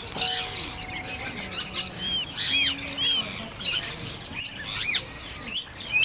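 Birds chirping busily: many quick, arched chirps, several a second, with a few steady low notes held beneath them near the start and about halfway through.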